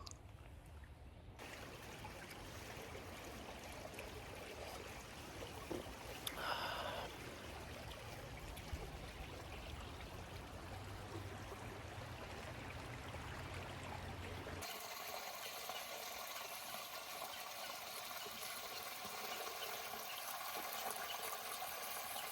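Creek water flowing and trickling in a steady rush. The sound changes abruptly twice, turning brighter and hissier for the last third, and there is a short louder sound about six and a half seconds in.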